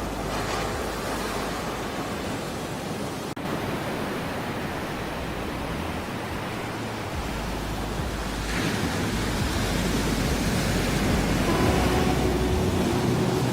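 Ocean surf washing steadily, with a wave swelling louder about eight seconds in. Faint held musical tones come in near the end.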